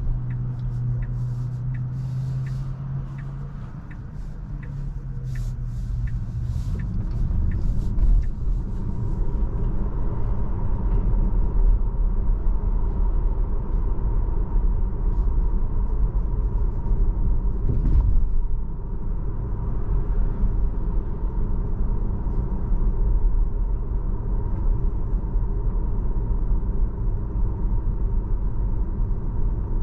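Steady low rumble of a Tesla's road and tyre noise while driving, with a sharp ticking about twice a second for the first eight seconds and one louder thump about 18 seconds in.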